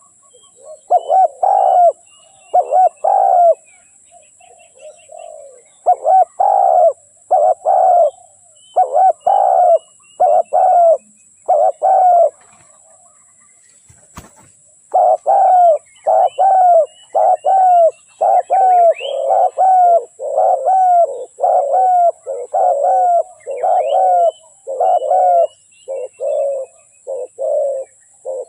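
Spotted dove cooing over and over, its low notes coming in quick groups of two or three, with a pause of about two seconds halfway through and a single click during it. Faint higher chirps of small birds sound in the background.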